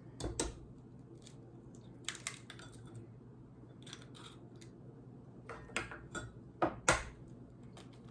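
Eggs being cracked by hand into a glass measuring cup: several sharp taps and clicks of eggshell on the glass rim and shell being pulled apart, the loudest a little before the end.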